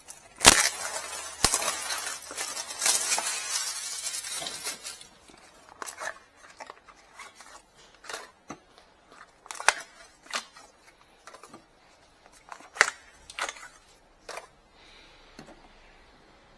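Rustling and crinkling handling noise for about four seconds, then scattered clicks and taps as small parts are picked up and set down.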